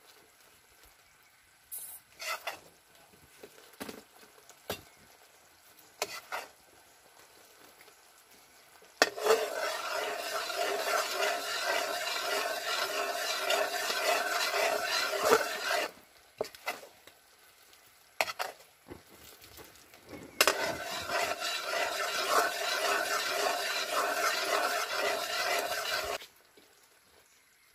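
A metal ladle stirring and scraping bubbling caramel sugar syrup in a wok. There are two long stretches of steady scraping and sizzling, one from about 9 to 16 seconds and one from about 20 to 26 seconds, each starting and stopping abruptly. Before and between them come scattered small clinks and taps.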